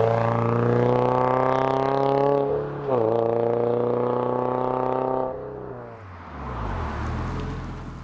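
Sports coupe's flat-four engine through a COBB titanium cat-back exhaust, accelerating hard. The note climbs in pitch, drops briefly at an upshift a little under three seconds in, and climbs again. Just past halfway it falls off when the throttle is lifted, then a lower rumble fades away.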